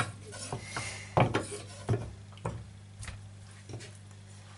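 Kitchen knife cutting salmon fillet on a wooden cutting board: about half a dozen short, irregular knocks of the blade against the wood, over a steady low hum.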